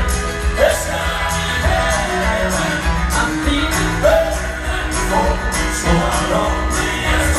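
Male Southern gospel quartet singing in harmony with piano and band accompaniment, recorded live from the audience in a hall.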